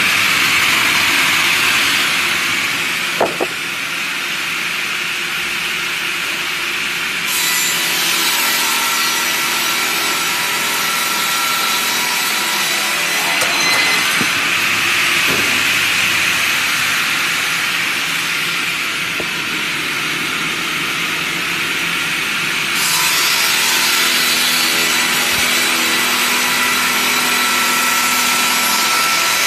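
Sawmill blade cutting steadily through a log, a continuous sawing noise with a single sharp knock about three seconds in.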